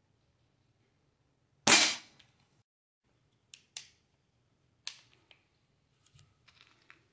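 A single shot from a Ruger Mark IV break-barrel pellet pistol about a second and a half in: a sharp crack that dies away quickly and is not that loud. A few much fainter clicks follow as the pistol is handled.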